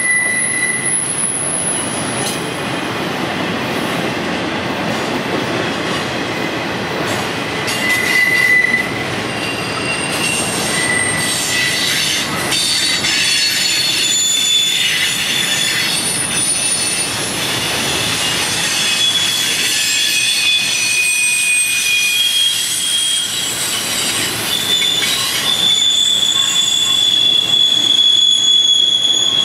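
Intermodal freight train rolling around a curve: a steady rumble of steel wheels on the rails, with flange squeal in several shifting high-pitched tones. A strong squeal holds steady near the end.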